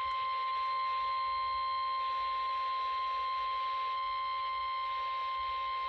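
NOAA Weather Radio 1050 Hz warning alarm tone: one steady, unbroken high beep, the signal that a weather warning is about to be broadcast.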